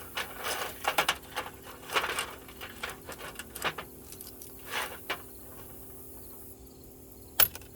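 Small metal ratchet sockets clinking and rattling as they are handled and sorted, with scattered clicks through the first five seconds and one sharp clack near the end.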